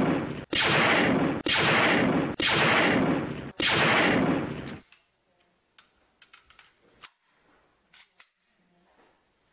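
Gunshot sound effects fired in a quick string, about one a second: each a sharp bang with a noisy tail lasting about a second, four new ones after one already sounding, the last dying away about five seconds in. Then only faint scattered clicks.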